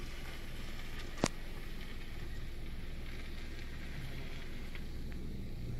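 Steady low rumble of an idling vehicle engine, with one sharp click about a second in.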